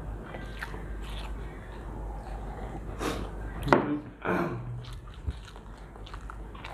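Chewing and eating sounds from people eating kacchi biryani, with faint small clicks of mouth and food. About three and a half seconds in, a person makes a short, louder voiced sound.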